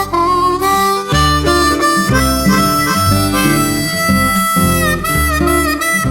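Background music: an instrumental passage led by harmonica, playing held and bending notes over a low bass line.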